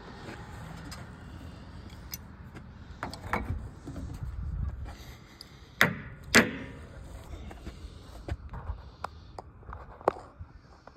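Scattered clicks and knocks of hand tools and metal fittings being handled while working on a water heater's drain valve, with two loud knocks about half a second apart roughly six seconds in.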